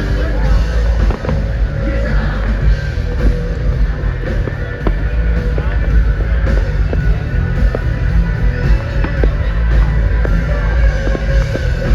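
Loud music with a rock beat, over many sharp firework pops and bangs scattered throughout.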